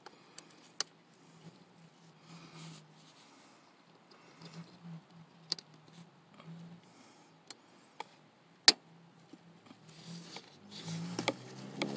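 Gloved hands handling a plastic wiring connector: scattered sharp plastic clicks and rubbing, with one loud snap about nine seconds in, over a faint steady hum.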